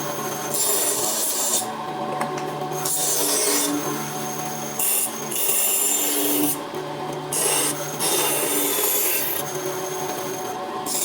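Repeated rasping and rubbing on wood in strokes of one to two seconds, over a low machine hum.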